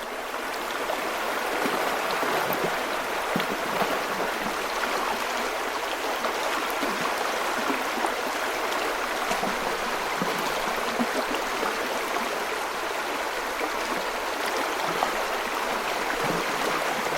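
Running water, a steady rushing and trickling like a small stream, fading in over the first couple of seconds and then holding steady.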